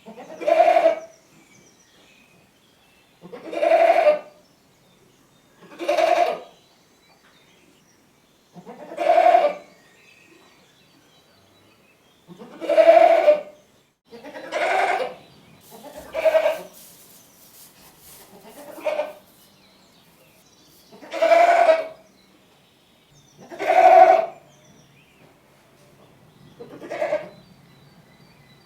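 Goat bleating: about eleven separate loud calls, each under a second long, with pauses of one to three seconds between them.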